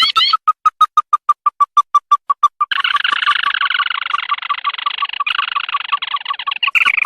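Recorded lure call of a white-browed crake: a fast, even run of short sharp pips, about six a second, joined a little under three seconds in by a loud, harsh chattering laid over the pips.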